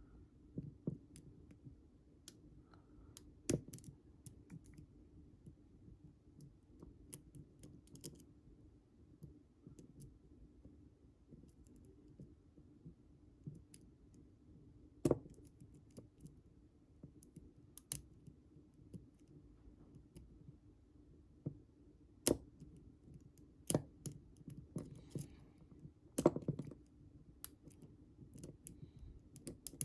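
Lock pick and tension wrench working the pins of a Commando padlock with ten security pins: faint, irregular small metal clicks and scrapes, with a dozen or so sharper clicks spread through.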